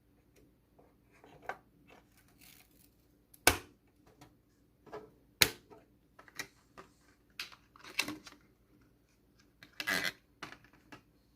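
Hands handling computer hardware: scattered clicks, rubbing and scraping, with two sharp, loud clicks about two seconds apart and a cluster of rattling clicks near the end.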